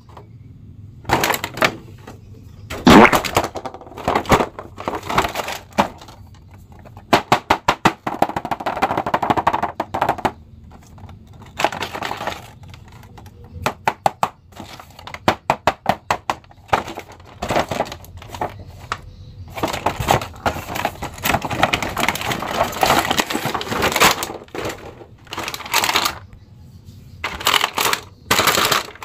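Clear plastic blister packaging crinkling and crackling as it is handled, with runs of quick clicks and snaps.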